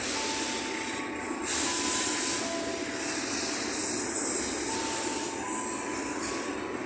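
Container freight train of flat wagons rolling past: a steady rumble and hiss of steel wheels on rail, with thin high wheel-squeal tones that come and go.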